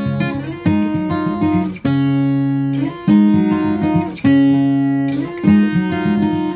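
Background music: an acoustic guitar strumming chords, with a strong strum about every second and lighter strums in between.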